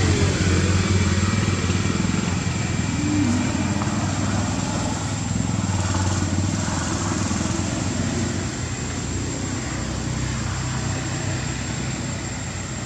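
A steady engine drone, easing off a little over the last few seconds.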